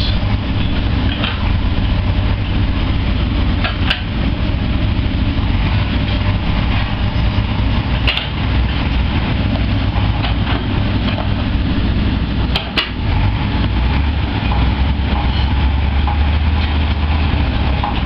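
Heavy diesel engine of a tracked excavator idling, a steady low hum, with a few sharp knocks, two of them close together about two-thirds of the way through.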